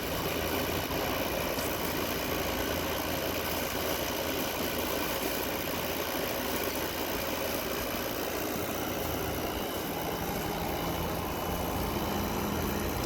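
A 2024 Midea 5,000 BTU window air conditioner running with a steady hum of compressor and fan. Its fan is slinging the condensate water that collects in the undrained base pan.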